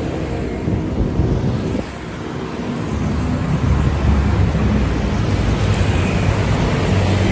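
Steady low rumble with wind noise. The level dips about two seconds in, then rises and holds steady.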